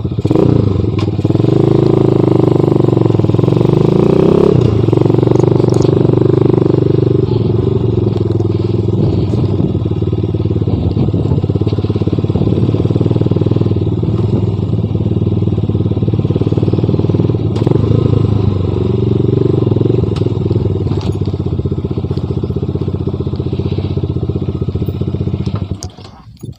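Motorcycle engine running through an aftermarket SC Project muffler. The pitch shifts in the first few seconds, then it runs steadily and stops near the end.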